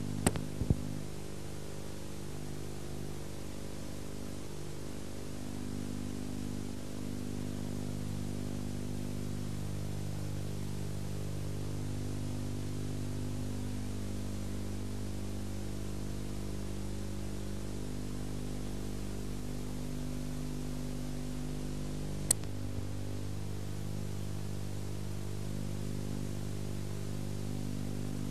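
Steady electrical mains hum with a stack of overtones over an even hiss, the noise floor of an old video recording in which no game sound is heard. A few sharp clicks come just after the start and one more about 22 seconds in.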